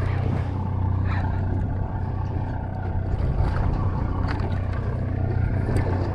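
Fishing party boat's engine running with a steady low hum, under a constant hiss.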